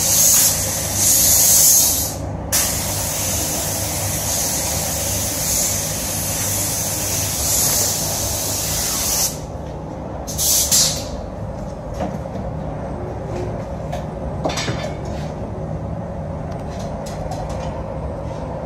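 Gravity-feed paint spray gun hissing as compressed air sprays paint. A long hiss runs for about nine seconds, broken briefly about two seconds in, then one short burst comes at about ten seconds. After that only a steady low hum remains.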